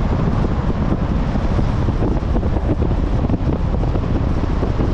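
Wind buffeting the microphone: a loud, rough, low rumble that flickers constantly and never settles.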